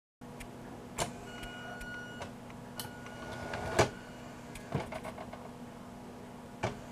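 A model shed's motorised sectional door, driven by a small motor under processor control, whines in two short spells as it moves down, with clicks and a sharp clack about four seconds in as it closes. A steady low hum runs underneath.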